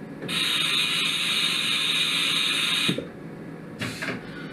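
Haas Super Mini Mill 2 CNC mill giving off a loud, steady hiss that starts sharply and cuts off after about two and a half seconds, followed by a couple of short mechanical knocks.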